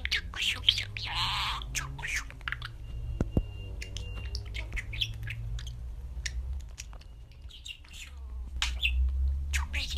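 Pet budgerigar chirping and chattering in quick, scratchy chirps, with a thin faint whistle held briefly around three to four seconds in and a lull around seven seconds in.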